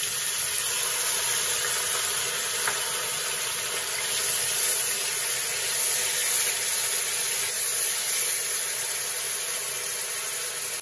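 Grated onion frying in hot oil in a kadai: a loud, steady sizzle that stops abruptly at the end.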